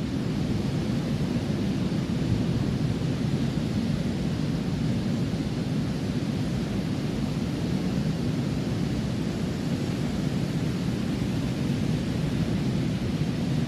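Ocean surf: a steady low rumble of waves breaking, with no separate crashes standing out.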